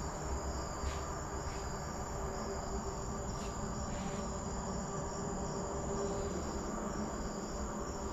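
Crickets chirping steadily, over a low steady hum, with a few faint clicks.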